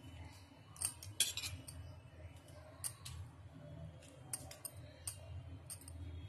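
A metal spoon clinking and scraping against a steel bowl and plate while chutney is spooned out and spread: a quick cluster of sharp clinks about a second in, then single clinks scattered through. A faint low hum runs underneath.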